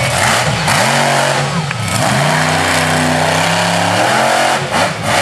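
Monster truck engine revving hard in surges, its pitch climbing, holding and falling again as the throttle is worked, over a dense wash of engine noise.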